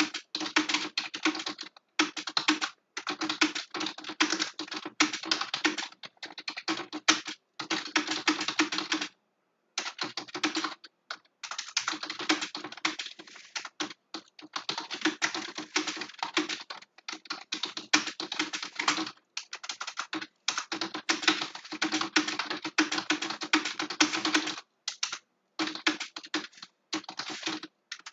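Fast typing on a computer keyboard: long runs of rapid key clicks broken by a few short pauses.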